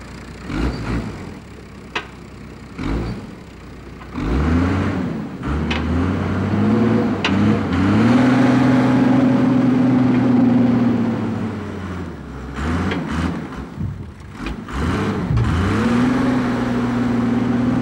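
Diesel engine of a forestry skidder hauling logs. It runs low with a few sharp knocks at first, revs up about four seconds in and holds high, eases off around twelve seconds in, then revs up and holds again near the end.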